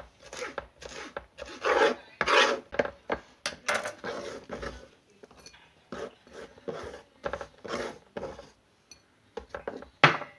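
Kitchen food preparation: repeated rasping, scraping strokes, about two or three a second, with a short pause about halfway and a sharp knock near the end.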